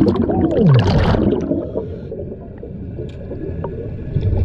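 Underwater sound of a scuba diver breathing through his regulator: a burst of exhaled bubbles with a wavering tone that falls in pitch in the first second and a half, then a quieter low rumble of the water.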